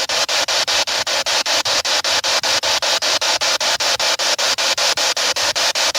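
Handheld spirit box sweeping through radio stations: a steady rush of static chopped into short bursts about six times a second as it hops from channel to channel.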